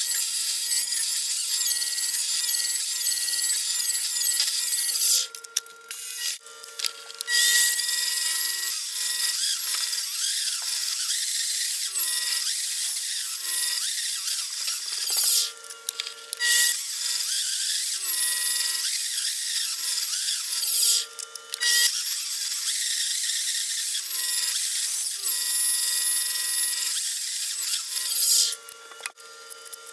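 Mini lathe boring out the centre of a thick aluminum disc with a boring bar: a steady motor and gear whine under a loud, hissing cutting noise. The cutting breaks off briefly a few times between passes while the motor keeps running.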